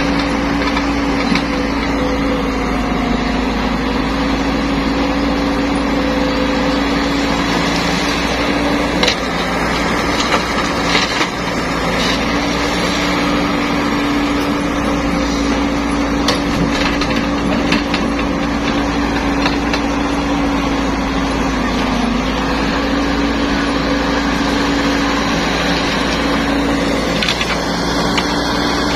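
Caterpillar E120B hydraulic excavator's diesel engine running under load as it digs and swings, a steady drone whose pitch sags briefly a few times as the hydraulics take load. A few sharp knocks of rock against the bucket, mostly in the middle and near the end.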